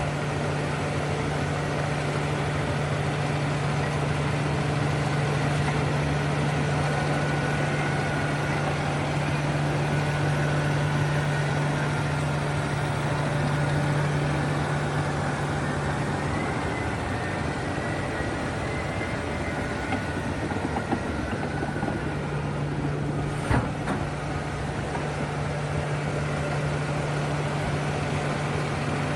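A heavy engine runs steadily with a low hum over a wide mechanical noise. The hum fades out for a few seconds past the middle, and there is a single sharp knock near the end.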